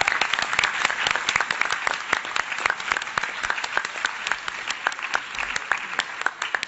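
Audience applause: many hands clapping together, with sharp single claps close to the microphone standing out, thinning gradually toward the end.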